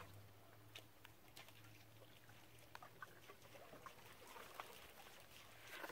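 Near silence, with a few faint, soft ticks scattered through it.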